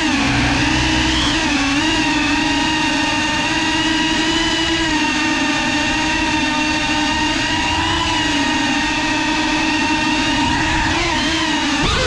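A Geprc 5-inch FPV quadcopter's brushless motors and propellers whining. The pitch rises and falls with the throttle, holds steady through the middle, then drops sharply and comes straight back up near the end as the throttle is chopped and punched.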